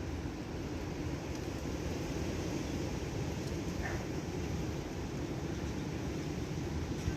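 Strong wind blowing steadily, with a low rumble of wind on the microphone.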